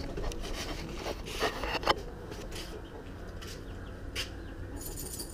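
Electric fly-swatter racket swung through the air again and again: several quick swishes, with a sharp crack about two seconds in.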